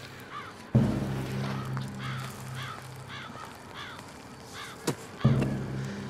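Crows cawing over and over, about two calls a second, over a low pulsing drone. A sudden deep hit comes about three-quarters of a second in and another near the end, with a short click just before the second.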